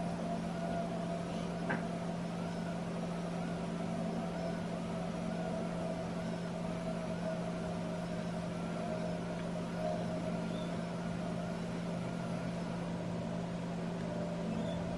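Small electric motor of a USB Yura Yura Pikachu bobble-head running steadily as it swings the toy's head from side to side, with a faint rising-and-falling whine repeating about twice a second. One sharp click about two seconds in.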